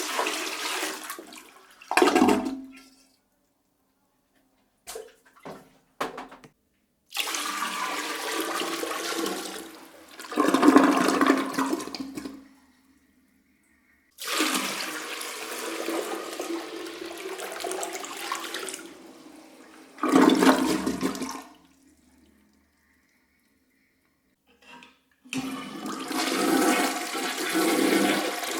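A series of separate toilet flushes, each a rush of water lasting about five to seven seconds, separated by silence. Two of the flushes are preceded by a few short clicks.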